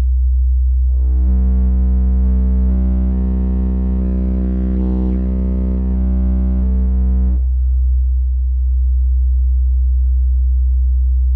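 DD Audio Redline 610e subwoofer in a toilet-bowl enclosure playing a steady 63 Hz sine-wave test tone at full volume for an SPL measurement. From about a second in until about seven seconds in, a buzzing layer of overtones rides on the tone. The burst measured 137.63 dB at 63 Hz.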